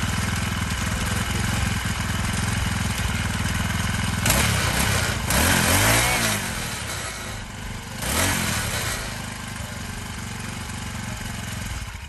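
49cc four-stroke motorized-bicycle engine idling steadily, then revved three times, about four, five and a half and eight seconds in, each time rising in pitch and falling back to idle.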